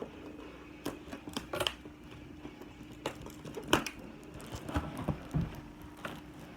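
Irregular light clicks, taps and knocks of small objects and packaging being handled, the sharpest knock about halfway through, over a faint steady hum.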